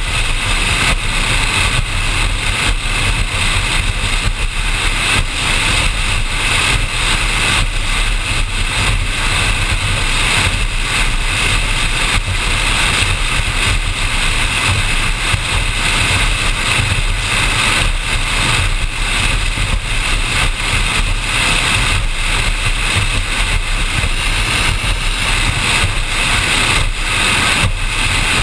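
Performance powerboat running steadily at speed: a constant engine drone mixed with rushing wind and water noise on a deck-mounted camera, with no change in pace.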